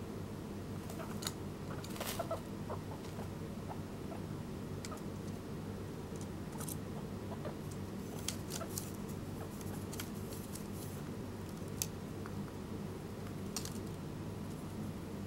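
Scattered small clicks and scratches from a young English guinea pig moving against the wooden lattice and netting of its pen, over a steady low hum.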